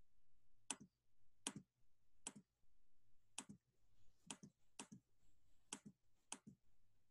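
Computer mouse clicking: a series of faint, sharp clicks, roughly one a second, as annotation marks are erased from a shared screen one at a time.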